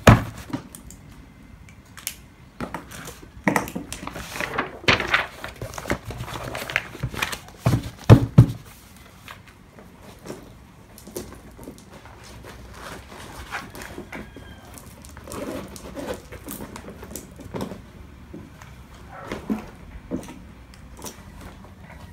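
Paper and books being handled and packed into a leather bag: pages riffling, papers rustling and a series of knocks of covers and notebooks on a desk. The loudest knocks come right at the start and about eight seconds in, and it grows quieter after that.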